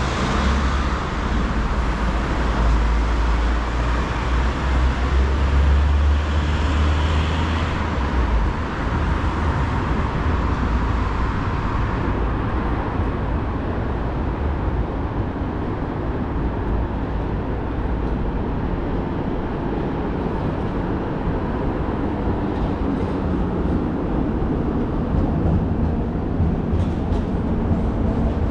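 Street traffic noise, with a heavy vehicle passing and a deep rumble for the first eight seconds or so, then a steady hum of traffic.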